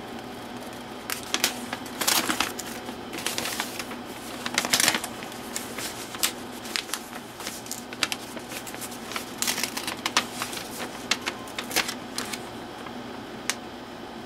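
Plastic and foil packaging wrap being torn and crinkled by hand, in irregular rustles and crackles with a few louder bursts about 2, 3.5 and 5 seconds in.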